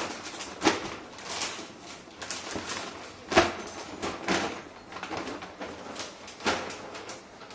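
Glossy plastic shopping bags rustling and crackling as they are folded and pressed into a cardboard box. A string of short, sharp crinkles and knocks, the loudest about three seconds in.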